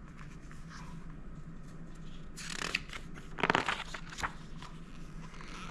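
Paper rustling in a few short bursts about halfway through, the handling of a picture book's pages, over a low steady hum.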